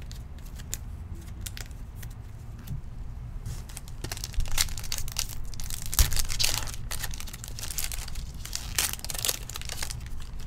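Foil trading-card pack torn open by hand, its wrapper crinkling, starting about three and a half seconds in and loudest around the middle; a few light clicks come before it.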